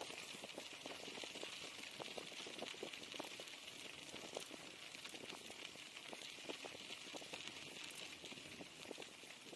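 Bicycle tyres crunching over packed snow: a continuous run of small irregular crackles, with a steady hiss behind them.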